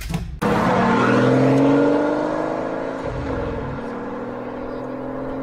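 Car engine sound revving up: it cuts in abruptly about half a second in, rises in pitch for about a second, then runs on at a steady pitch.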